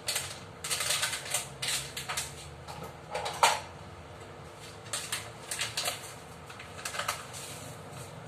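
Irregular small clicks and knocks of kitchen items being handled, with the sharpest knock about three and a half seconds in. The sound comes as the black pepper and a spoon are got ready for seasoning the wings.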